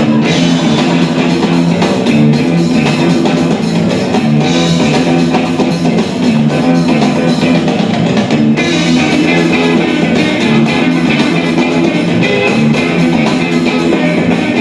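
Loud guitar-driven rock-style music with a drum kit, played continuously as battle music.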